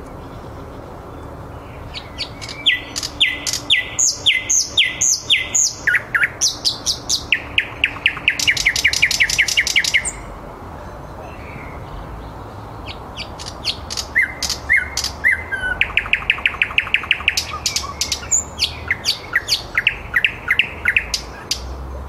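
Thrush nightingale singing: two long song phrases of fast repeated clicking notes and rattling trills, with a pause of about three seconds between them.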